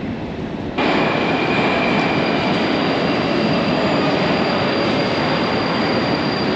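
Metro train running along the platform: a loud, steady rumble of wheels on rail with a high, steady wheel squeal. It sets in abruptly just under a second in, after a quieter hum.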